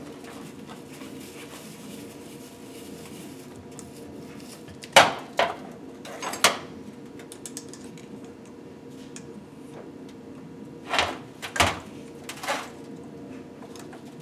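Sharp metallic clunks and clinks of engine parts and tools being picked up and set down on a workbench, in two groups of three, about five seconds in and again about eleven seconds in, over a steady low hum.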